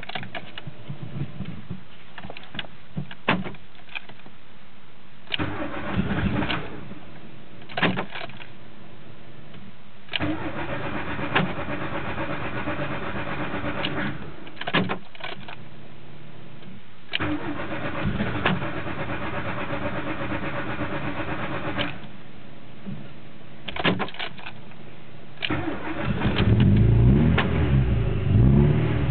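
A Volkswagen Mk2 16-valve four-cylinder engine being cranked on the starter in several separate tries, with clicks between them, without catching. Near the end it fires and keeps running loudly: a hard start.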